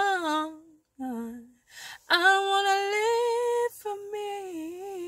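A woman singing a cappella. A short bending note is followed by a lower one, then a breath, a long held note near the middle, and a line that falls away toward the end.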